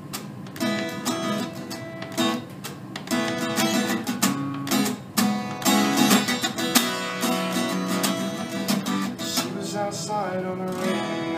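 Acoustic guitar strummed in steady chord strokes.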